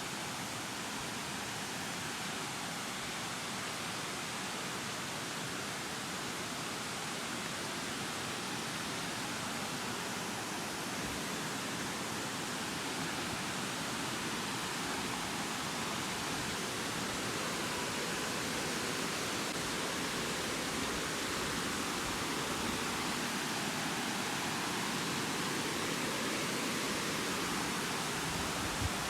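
Waterfall rushing, a steady even roar of falling water that grows slowly louder through the stretch.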